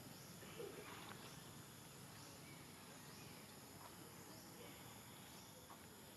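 Near silence: faint outdoor ambience with a steady high insect drone and a few faint short chirps.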